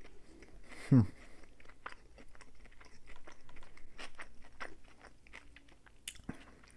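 Close-miked chewing of a salad of lettuce, egg, ham and cheese: soft crunches and many small wet mouth clicks. About a second in there is one brief, loud throaty sound that drops in pitch.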